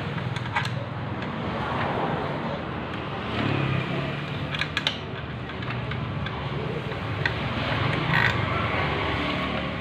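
Engine running steadily with a low hum, with a few sharp metallic clicks or taps over it.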